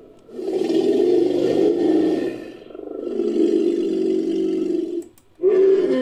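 Sound-designed sauropod dinosaur calls built from Diplodocus and sauropod sound effects: two long, low, drawn-out calls one after the other, then a third call beginning near the end after a short break.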